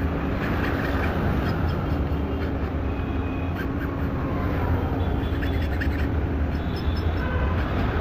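Steady low rumble of nearby engine and traffic noise, with faint scraping of a hand file on a metal key blank.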